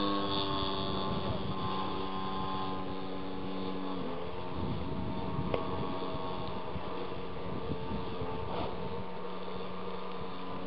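Radio-controlled Piper Cub scale model's motor and propeller droning steadily in flight overhead. The pitch drops slightly about four seconds in as the throttle is eased, then holds.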